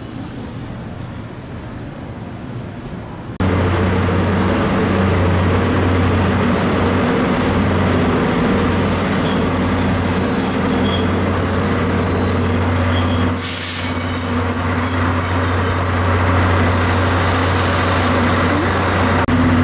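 Diesel locomotive engines running steadily close by: a loud low drone with a hum. A thin high squeal runs through the middle, and a short hiss of air comes about two-thirds of the way in. Before it sets in with a sudden jump in level, the first three seconds hold quieter, distant train and station sound.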